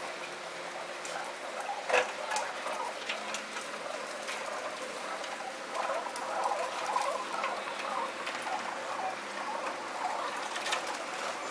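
Feral pigeons pecking grain and scuffling on a tiled ledge: a rapid scatter of small taps and clicks, with one louder knock about two seconds in, sped up to double speed.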